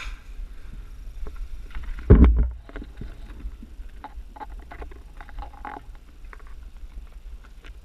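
Low rumbling handling and movement noise on a body-worn action camera, with scattered small clicks and knocks and one loud dull thump about two seconds in.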